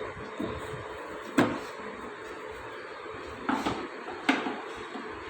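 Kitchen items being handled and set down on a counter: a sharp knock about one and a half seconds in, then a few more clunks near the end.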